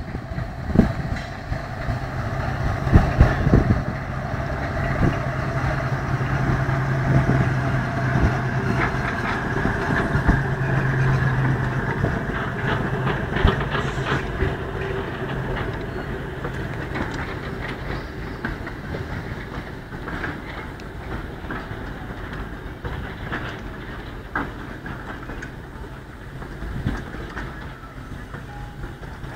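Class 03 diesel shunter running slowly past with a short goods train: the engine's steady low drone is strongest in the first half and fades out as the locomotive moves away, while the vans and wagons rolling by clank and click over the rail joints.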